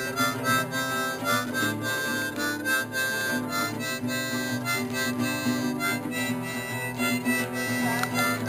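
Instrumental music with sustained chords and held notes, steady throughout.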